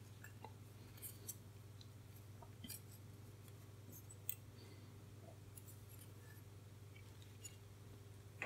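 Faint small clicks and ticks of resistor wire leads and a printed circuit board being handled as resistors are pushed into the board and their leads bent over, the sharpest click about four seconds in. A low steady hum lies under it.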